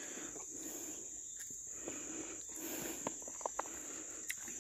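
Crickets trilling in a steady, high-pitched continuous chorus, with a few faint clicks in the second half.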